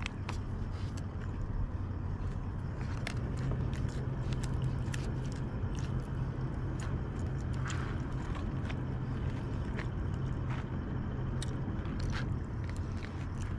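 People eating: scattered small clicks and scrapes of utensils and chewing over a steady low hum.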